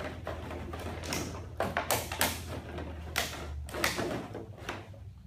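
Empty plastic water bottles clattering and knocking against each other in a plastic kiddie pool as a dog noses and roots through them for treats, in irregular clicks and knocks.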